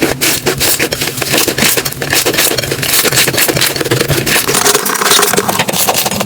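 Slime being squeezed and worked by hand, giving a dense run of quick crackling clicks.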